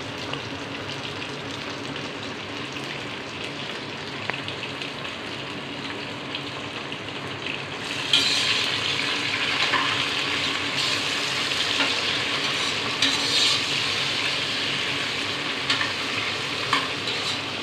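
Browned sliced onions frying in oil and ghee in a pan, sizzling steadily while being stirred. About eight seconds in, the sizzle gets louder and hissier as a handful of mint leaves goes into the hot fat.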